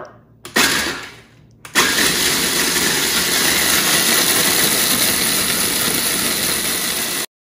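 KitchenAid food processor motor and blade grinding broken matzos into matzo meal: one short pulse about half a second in that winds down, then a steady run from about two seconds on with the crumbs whirling against the plastic bowl. It cuts off suddenly near the end.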